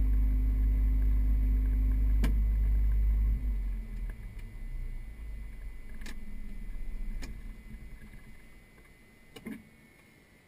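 Piper Navajo piston engine idling, then cut off about three seconds in: the steady run drops suddenly and winds down unevenly as the propeller spins to a stop, fading away over several seconds. A few sharp switch clicks are heard as the cockpit switches are turned off after shutdown.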